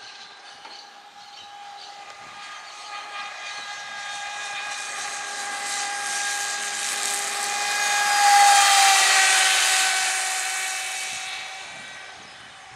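RC mono hull speedboat at full speed, its Rocket 4082 1900KV brushless motor and Octura propeller giving a high steady whine over the hiss of spray. The sound grows louder as the boat approaches, is loudest about eight seconds in with the pitch dropping as it passes, then fades as it runs away.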